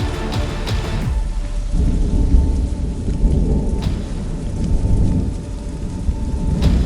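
Music cuts off about a second in, giving way to a loud, low rumble with a faint steady high tone underneath.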